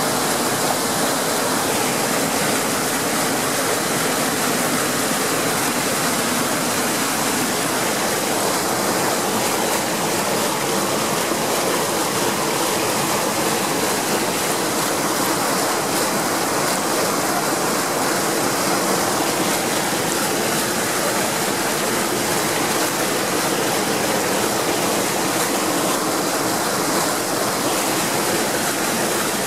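Muddy floodwater from a swollen stream rushing and churning over rocks, a steady loud rush of water.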